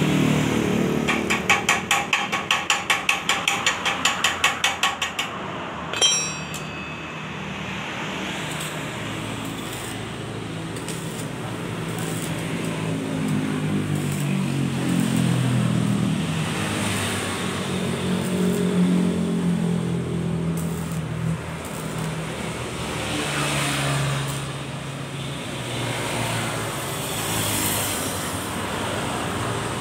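Arc welding on a leaking motorcycle muffler with a small inverter stick welder. A rapid even run of about four strokes a second opens it, a single metallic clang rings out about six seconds in, then comes a long stretch of crackling arc with a low drone rising and falling underneath.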